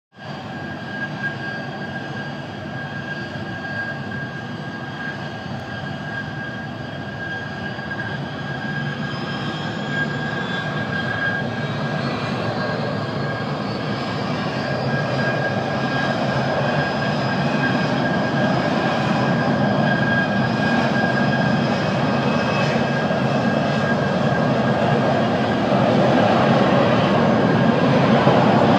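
Turbine-powered firefighting vehicle's jet engine running steadily with a high whine, blasting water mist, over the rushing noise of a burning gas-jet fire. The sound grows gradually louder.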